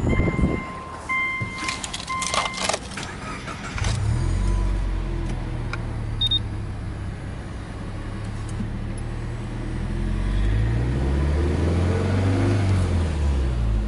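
A car's electronic warning chime beeps a few times and the key rattles. About four seconds in, a cold Subaru EJ20 turbocharged flat-four catches and idles at a fast cold idle. About ten seconds in it is revved to around 3,000 rpm, then falls back near the end.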